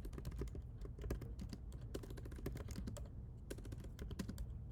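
Typing on a computer keyboard: quick, irregular keystrokes, with a short pause a little after three seconds in.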